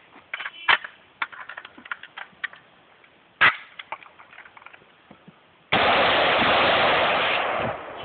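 Semi-automatic AR-15 rifle shots: two loud cracks, about 0.7 and 3.5 seconds in, with smaller clicks and cracks between them. Near the end a loud steady rushing noise on the microphone starts suddenly and runs for about two seconds.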